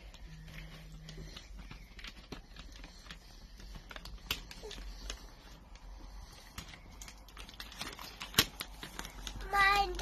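Scattered light clicks and taps from hands handling a cardboard gift box, with one sharp click about eight seconds in. A short high voice-like sound comes just before the end.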